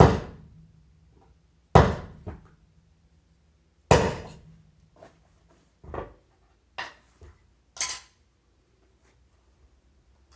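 Hammer blows on a wheelchair caster during bearing replacement: about six sharp metallic strikes at uneven gaps of a second or two, each with a brief ring, the first three the loudest.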